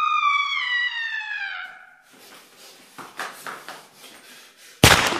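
A man's long, high-pitched scream that slides slowly down in pitch and dies away after about two seconds. Near the end, a single loud gunshot from a handgun.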